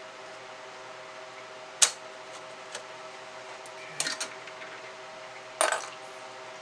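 Sharp small clicks and light clatter from working the internal board clips of an opened Icom IC-R75 receiver: one click about two seconds in, a quick pair about four seconds in and another near the end, over a faint steady hum.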